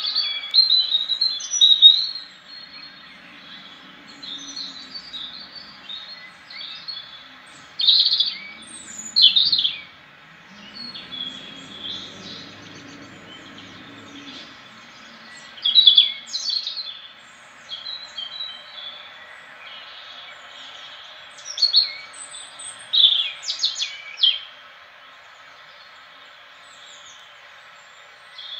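European robin singing: short bursts of high, thin, quickly varying warbled phrases, each a second or two long, separated by pauses of a few seconds.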